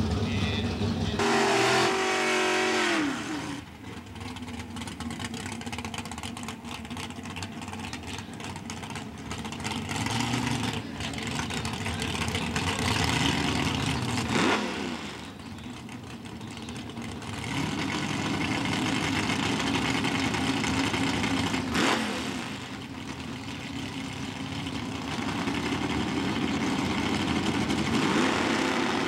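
Super Stock drag car's V8 engine, a first-generation Chevrolet Camaro, at the starting line. An engine winds down about two seconds in. The engine then idles and is revved up and let back down several times while staging.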